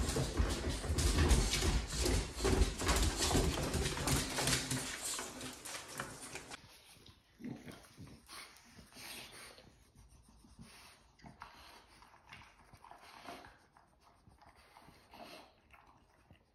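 Footsteps and dogs' paws clattering quickly down a staircase for about the first six seconds, then two bulldogs eating food from the bowls of a raised feeder, with quieter irregular crunching and clinking.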